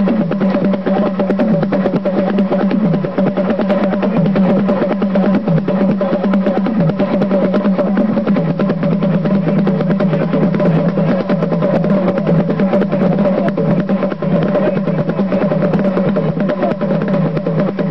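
Ceremonial music: fast, dense drumming over a steady held drone of two tones, one low and one higher, without a break.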